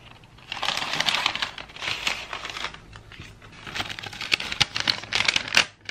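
Paper packaging being unwrapped by hand: irregular spells of crinkling and rustling with sharp crackles as a small wrapped package is opened.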